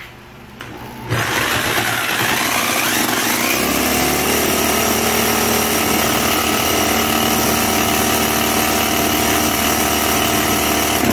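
Electric drill starting about a second in and spinning a scooter engine's flywheel magneto through a socket on the crankshaft. It rises in pitch over a couple of seconds, then runs steadily at speed, driving the magneto to test its ignition output.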